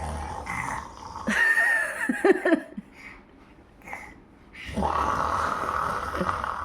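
A small child imitating snoring: long, rasping, rumbling snore sounds, one ending about a second in and another starting near five seconds, with brief high, gliding voice sounds in between.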